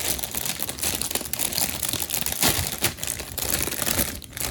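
Thin plastic bags crinkling and crackling as bagged plastic model-kit runners are handled and unpacked, with scattered small clicks.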